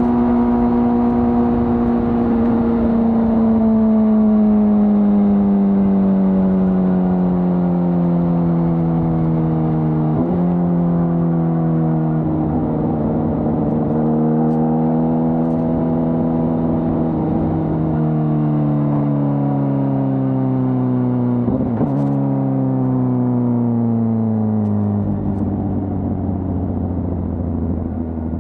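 2025 Honda CBR600RR's inline-four engine through its stock exhaust, its note falling steadily as the bike slows. The note steps up briefly about ten seconds in and again a little past twenty seconds, as at a downshift, and drops to low revs near the end.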